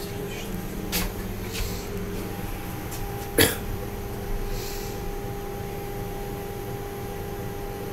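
ET2M electric train standing at a platform with its doors open: a steady electrical hum with several fixed tones, broken by a few small clicks and one sharper click about three and a half seconds in.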